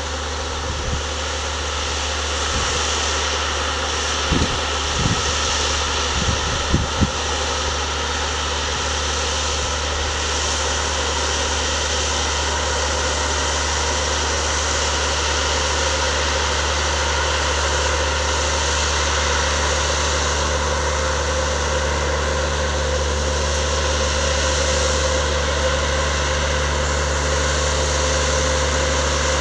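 Bateman RB25 self-propelled crop sprayer's diesel engine running steadily as the machine drives through the crop, slowly growing louder as it comes closer. A few low wind thumps on the microphone in the first seven seconds.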